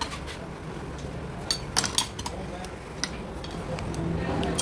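Metal tools and parts clinking against a Zexel inline diesel fuel injection pump being worked on by hand: a few sharp clinks, bunched together about a second and a half in, over a steady low hum.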